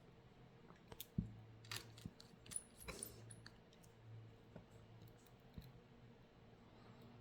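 Faint scattered clicks and light taps, clustered between about one and three and a half seconds in, over a low steady hum: small tools and parts being handled while a smartphone is taken apart.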